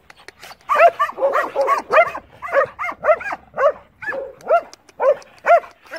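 Belgian Malinois barking in a fast, steady run, two to three barks a second, starting under a second in.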